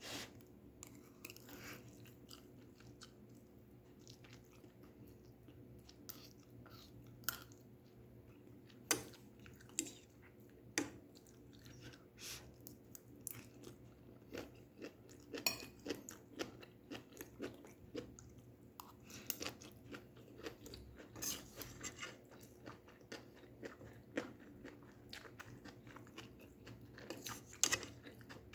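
Close-miked chewing and crunching of stir-fried vegetables, crisp irregular bites that come more often in the second half, over a faint steady hum.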